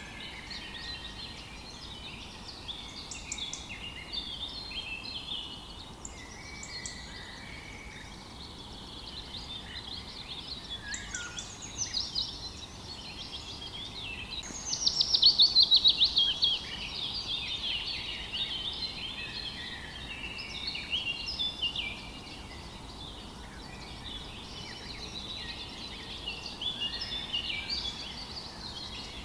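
Many songbirds singing and calling at once, a dense mix of chirps, twitters and trills, with one loud fast run of falling notes about halfway through. A faint steady rush of river water lies underneath.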